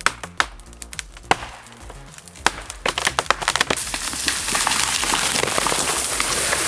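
Wood cracking and splintering in a few sharp cracks, then a quick run of cracks about three seconds in, followed by a steady rushing noise.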